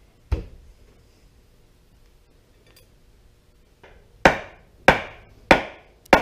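Hammer blows on the top of a John Deere loader lift cylinder's rod: one strike, then after a pause four strikes about 0.6 s apart, each with a short ring. The blows drive the rod and gland down into the barrel past the internal snap ring, which a tightened hose clamp holds compressed.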